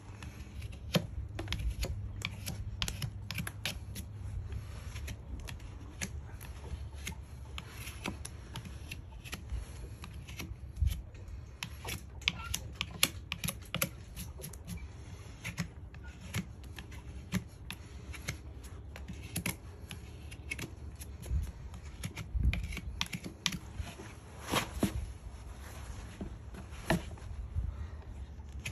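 A farrier's hoof knife paring a horse's hoof: a run of short, sharp scraping and clicking cuts at an irregular, quick pace.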